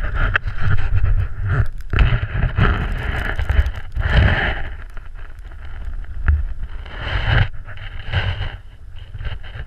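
Wind buffeting the microphone in gusts, a rumbling hiss that swells and fades every second or two, with a few brief knocks.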